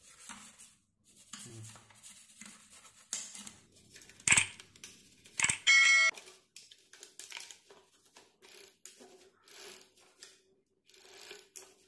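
Subscribe-button animation sound effect: a sharp click about four seconds in, then a short, bright bell-like ding about a second later. Around it are faint, scattered rubbing and clicking sounds from handling a mountain bike's rear cassette.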